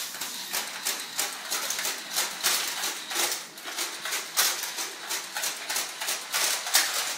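Rapid, irregular clicking and rustling close to the microphone, several sharp ticks a second, typical of handling noise as a handheld phone is carried quickly through a room.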